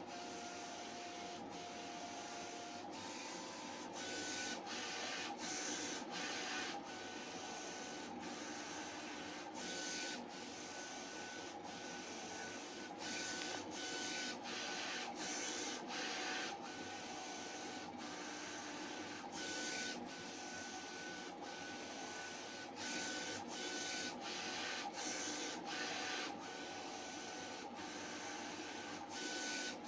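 Homebuilt CoreXY 3D printer's stepper motors whining as they drive the print head around in quick test moves, the pitch changing from one move to the next. The sound drops out briefly between moves many times, with several louder stretches of faster travel.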